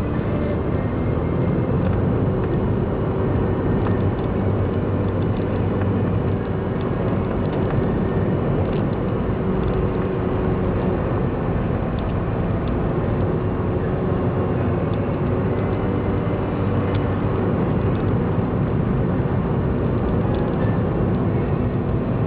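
Daihatsu Copen's small 659 cc turbocharged four-cylinder engine running steadily while the car drives along, with continuous road noise.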